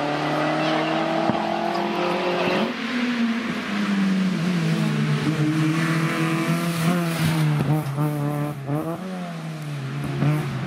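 Rally car engines driven flat out on a hillclimb stage: the engine note rises under hard acceleration, drops at a gear change about three seconds in, then holds before several quick rises and falls in pitch near the end.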